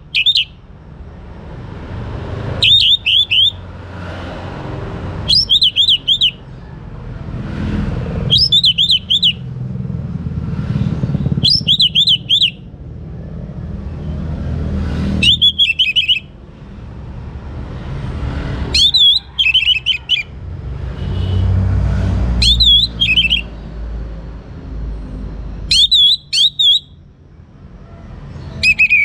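Young orange-headed thrush singing: short, rapid, warbling phrases about a second long, repeated roughly every three seconds, over a low rumble.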